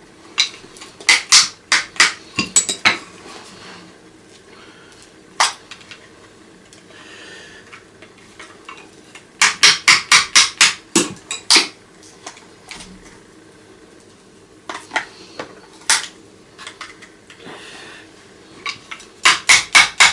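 Hammer striking a screwdriver to crack open the plastic housing of an old vacuum cleaner: sharp metallic taps, some single and some in quick runs of about four or five a second.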